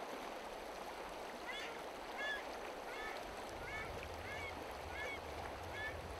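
River water running over stones, with a bird giving short high calls over and over, about one every half second to a second. A low rumble comes in about halfway through.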